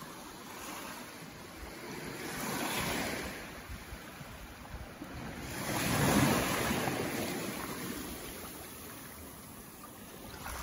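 Small waves breaking and washing up a sandy beach. The surf swells twice, the second time louder.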